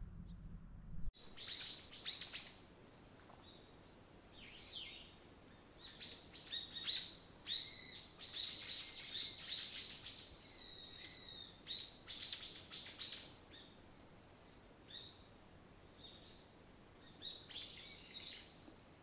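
Birds chirping outdoors in bursts of quick, high calls, starting about a second in after a low hum cuts off and pausing briefly between bursts.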